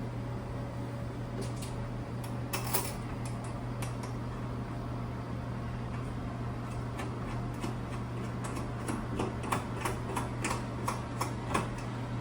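Scattered light clicks and taps from hands and tools working a plumbing fitting onto the water heater, over a steady low hum. The clicks come in a brief cluster early on, then a quicker run of taps near the end.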